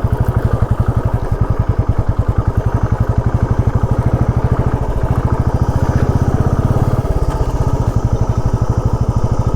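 Motorcycle engine pulling at low revs with a rapid, even exhaust beat, under load on a steep, rough climb.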